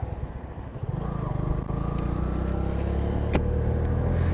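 Bajaj V15's single-cylinder engine running steadily under way with a low rumble, its note picking up about a second in. A single sharp click a little past three seconds.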